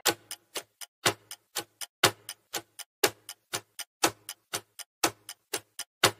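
Ticking-clock countdown sound effect: sharp ticks, about four a second, every fourth tick louder, counting down the time to answer a quiz question.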